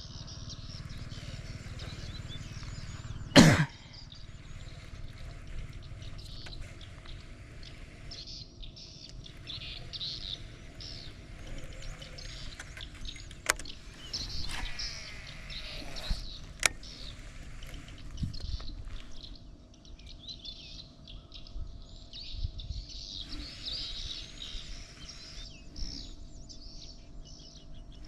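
Small birds chirping and calling over and over. A single loud sharp knock comes about three seconds in, and a few fainter clicks follow later.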